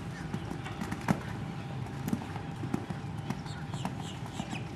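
Horse's hoofbeats on arena sand, with a sharp knock about a second in. In the second half a bird chirps over and over in short falling notes.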